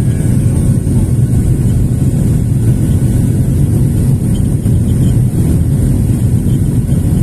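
Airliner's jet engines and airflow heard inside the passenger cabin during the climb after takeoff: a loud, steady low noise.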